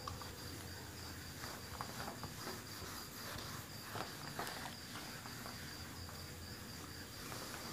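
Faint rubbing and light taps of a duster wiping a whiteboard, over an insect chirping steadily in a high, pulsing trill.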